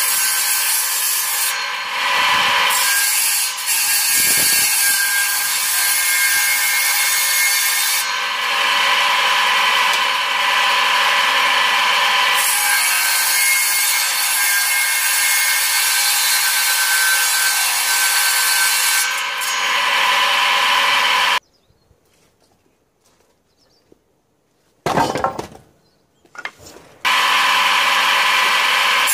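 Homemade table saw, a circular blade driven by an old German 730 W electric motor, running and cutting through firewood sticks and a branch. The sound changes as the wood is fed into the blade. It cuts off suddenly about 21 seconds in, gives way to near silence with a few brief noises, and starts again near the end.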